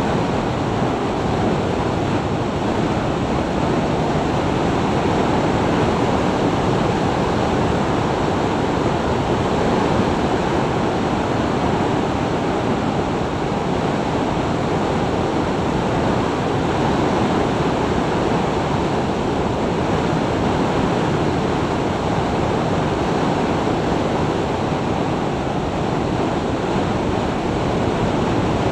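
Steady rush of wind over an action camera's microphone at about 60 mph. It is a constant noise with no engine note standing out.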